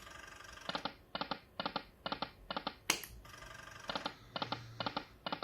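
Poker machine spins, with a short tonal click as each reel stops, about two a second: five in a row early on, a sharp click near the three-second mark as the next spin starts, then the reel-stop clicks again.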